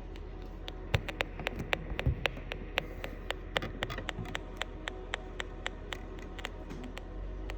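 Irregular, rapid sharp clicking or crackling, several clicks a second, over a steady low hum that grows slightly louder near the end.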